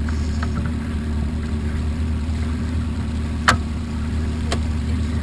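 Motorboat engine running steadily, heard from on board the moving boat, with two sharp knocks about a second apart just past the middle.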